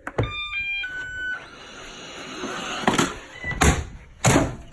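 A robot vacuum is kicked and falls down stairs. A knock is followed by a short run of electronic beeps at stepped pitches from the vacuum, then several loud hard bangs as it tumbles and hits the steps.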